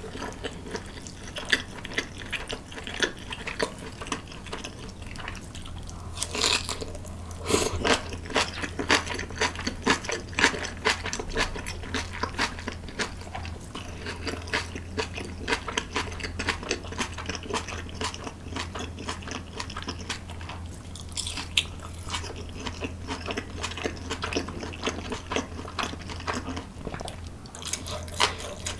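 Close-miked eating: steady chewing and crunching of food with many small wet mouth clicks, over a low steady hum.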